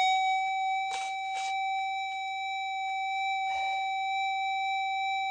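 Minelab gold detector sounding a steady, unbroken target tone, a sign of metal in the clump of dirt being checked. A few brief faint rustles sound over it.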